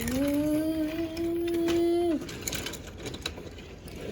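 A person's voice holds one long hummed note for about two seconds, rising a little at the start and dropping away at the end. After it come faint clicks and rattles of plastic toy trains being pushed along.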